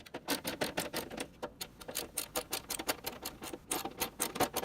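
Phillips screwdriver turning out a desktop PC case screw: a quick run of sharp clicks, about seven a second, with a short pause about three seconds in.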